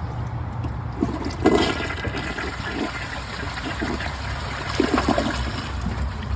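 2018 Mansfield Summit dual-flush toilet flushing: water rushing through the bowl, with a loud surge about a second and a half in and another near five seconds.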